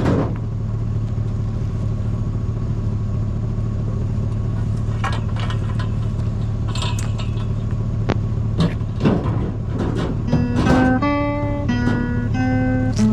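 Steady low vehicle rumble with scattered clicks and knocks. About ten seconds in, plucked guitar music comes in over it.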